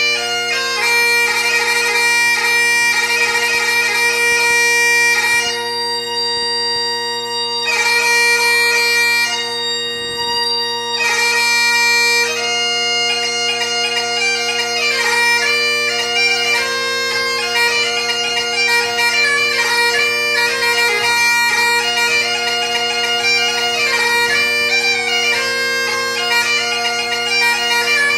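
Great Highland bagpipe played solo: the steady drones sound continuously under a lively chanter melody full of quick grace-note ornaments.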